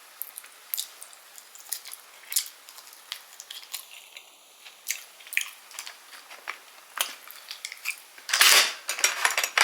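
Dungeness crab shell being cracked and picked apart while eating: scattered sharp snaps and clicks, with a louder burst of crunching and crackling near the end.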